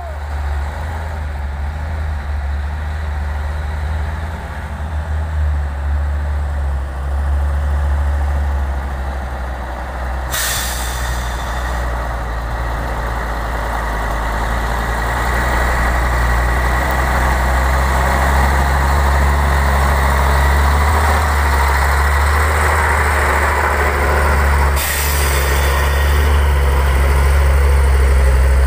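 Heavy diesel dump trucks running at low speed close by, a steady low engine drone that grows louder toward the end as a Hino dump truck pulls up. Two short, sharp air-brake hisses cut in, about ten seconds in and again some fifteen seconds later.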